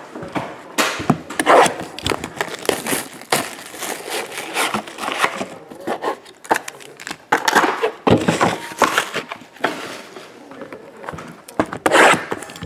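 Plastic wrap and foil trading-card packs crinkling and rustling as they are handled, in irregular bursts, with a few sharp knocks of cardboard boxes.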